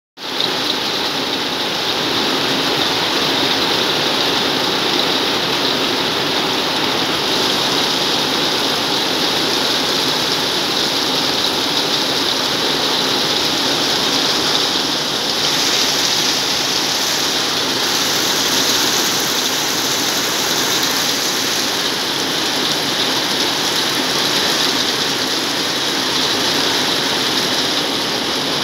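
Heavy rain falling in a steady downpour, drumming on corrugated metal roofing.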